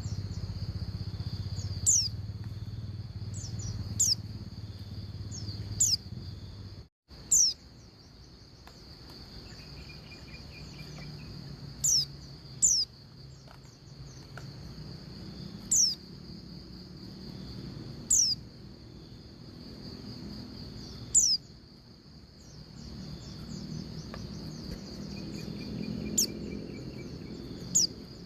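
Female white-eye (pleci) giving her call to males: short, high chirps that slide downward, repeated irregularly every couple of seconds, over a steady high-pitched buzz like crickets. The sound cuts out for an instant about seven seconds in.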